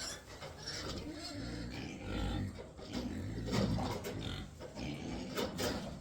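Farm animal noises, with a low rumble underneath and a couple of sharp clicks near the end.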